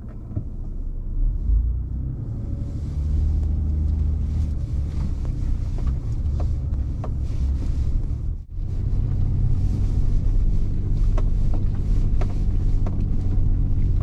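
Mitsubishi Pajero IV's engine working hard under load as the SUV climbs a muddy, grassy slope on tyres let down to 0.8 bar. The rumble drops for a moment about eight and a half seconds in, then comes back louder, with scattered light ticks and knocks over it.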